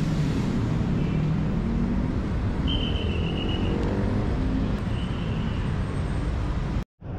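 Yamaha Sniper motorcycle's single-cylinder engine running at low speed as the bike rolls along, with a steady low rumble and its pitch drifting up and down slightly. A few short high tones sound over it, and the sound cuts off suddenly near the end.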